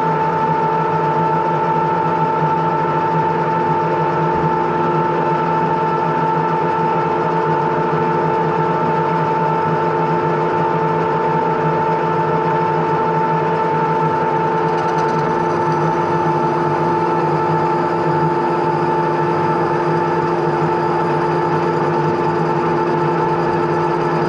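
Metal lathe running steadily at speed, its chuck spinning a steel bar, giving a constant whine made of several steady tones.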